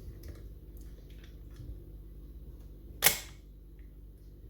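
Faint ticks of a lock pick working the levers inside a mortice lever lock, then one sharp metallic click about three seconds in.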